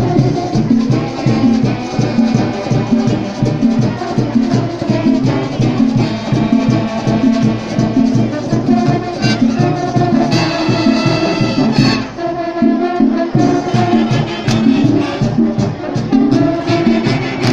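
Marching band playing brass over drums with a steady beat. A brighter, held brass chord stands out about ten seconds in and lasts nearly two seconds.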